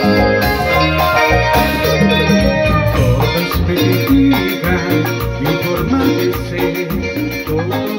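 Live cumbia band playing: electric guitar, electric bass and keyboard over a steady beat. From about three seconds in, quick even percussion ticks run along over the music.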